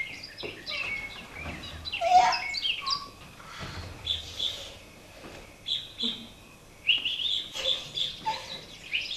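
Bird-like chirping and twittering, high-pitched: quick runs of short chirps for the first few seconds, then longer warbling whistled calls. A few light knocks sound in the first couple of seconds.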